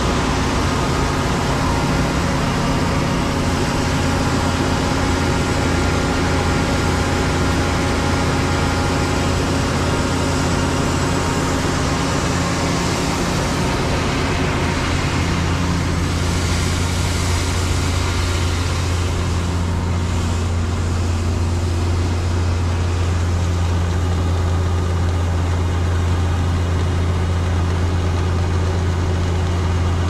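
A combine harvester unloading grain through its auger into a steel trailer, with heavy engines running. It is a steady low engine hum under an even hiss of pouring grain.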